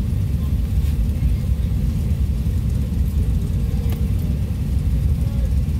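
Car engine running with a steady low rumble, heard from inside the cabin while the car creeps along in line.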